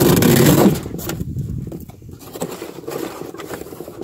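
A folding knife's blade cutting through corrugated cardboard: a loud scraping slice in the first second, then quieter, shorter scraping and tearing strokes as the cut goes on. The blade's edge, by the reviewer's account, was not very sharp out of the box and does not hold up well.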